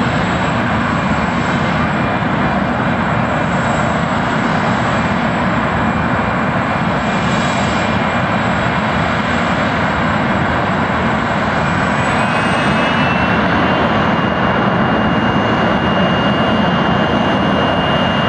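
Jet truck's jet engine running loud and steady: a rushing noise with a high whine on top. The whine steps up in pitch about two thirds of the way through as the engine is spooled up for the run.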